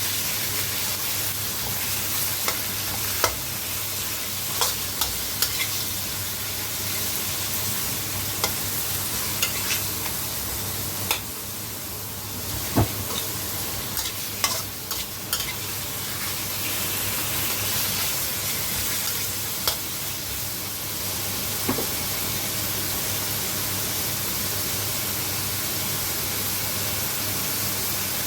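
Beef sizzling in hot oil with onion and garlic in a pan, stirred with a spatula that clicks and scrapes against the pan now and then. The clicks stop about three-quarters of the way through, leaving a steady sizzle.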